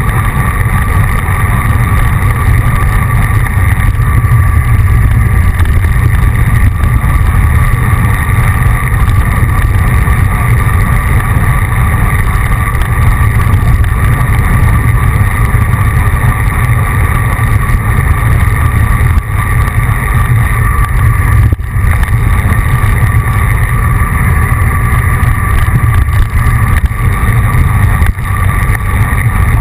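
Loud, steady wind rumble on the microphone of an action camera mounted on a moving road bike.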